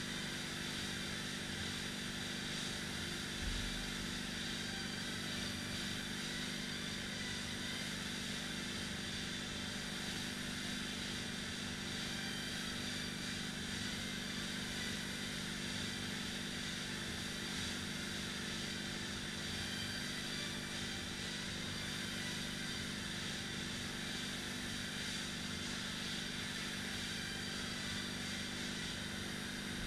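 Fan flywheels of two indoor rowing machines whirring steadily under continuous rowing, with one dull thump about three and a half seconds in.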